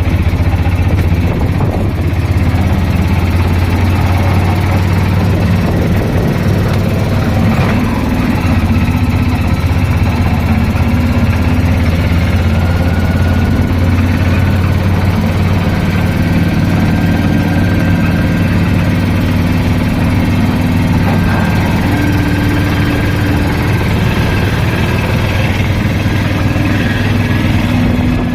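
An engine running steadily at a constant speed, with a low, even hum.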